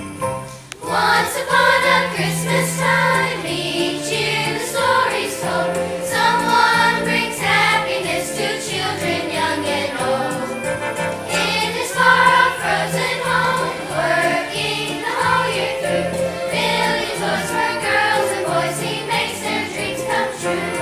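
Children's choir singing a Christmas song over an instrumental accompaniment, picking up again after a brief dip about half a second in.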